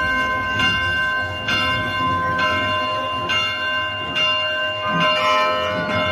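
Church bells ringing, struck about once a second with each stroke ringing on into the next.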